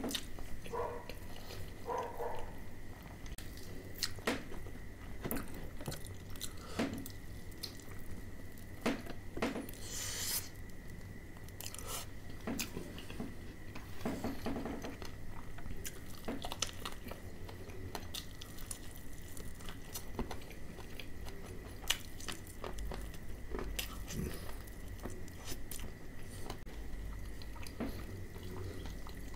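Close-miked chewing and biting of crispy fried chicken: irregular crunches and wet mouth sounds throughout, under a faint steady high hum.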